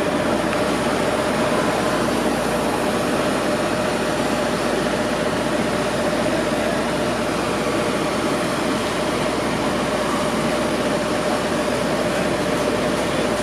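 Steady city street noise: traffic passing over a constant mechanical hum with one unchanging droning tone.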